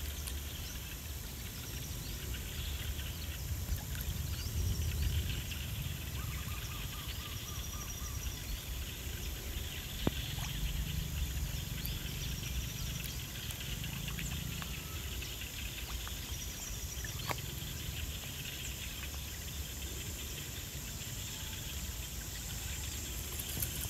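Open-air ambience: a steady low rumble with dense high chirping of birds or insects and a few short high calls, broken by a sharp click about ten seconds in and another around seventeen seconds.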